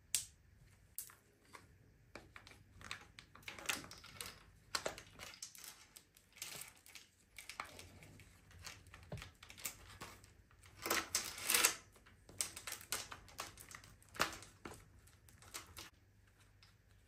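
Steel double-row timing chains and their guides being handled and fitted on a BMW S38 engine block: irregular metallic clicks and chain rattles, busiest about eleven seconds in.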